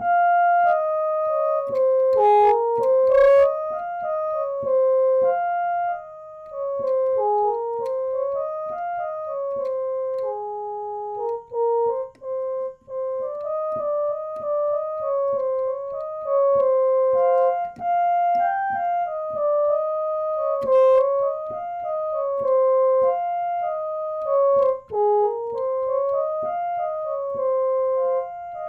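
Electronic keyboard playing a slow, simple melody of single held notes moving up and down, with a few short clicks.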